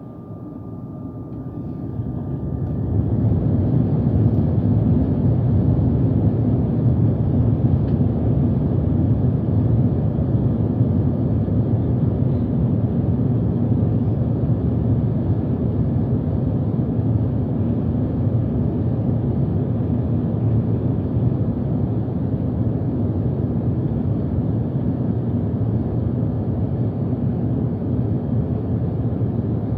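Jet airliner's wing-mounted turbofan engines heard from inside the cabin, spooling up over the first few seconds to high thrust on the runway, then holding a loud, steady deep roar. A thin whine heard at the start fades out about two seconds in.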